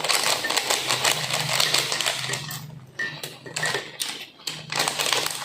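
Ceramic cups and spoons clinking as coffee is served, with many quick, irregular light clicks.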